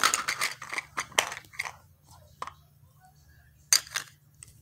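Hard plastic play-food pieces and toy dishes clicking and rattling together as they are handled: a quick cluster of clicks over the first two seconds, one sharp click a little later, and two more near the end.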